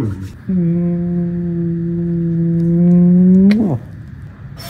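A low voice holding one long steady note for about three seconds, swelling a little and sliding up in pitch before it breaks off with a click.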